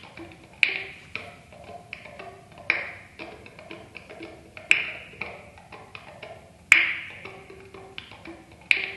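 Solo clarinet played percussively, with its keys clicked and tapped rather than blown: a sharp, louder clack about every two seconds, five in all, with softer ticks and faint short pitched taps in between.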